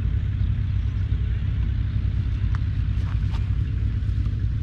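Allis-Chalmers ED40 tractor's 2.3-litre four-cylinder diesel engine idling steadily, a low, even rumble.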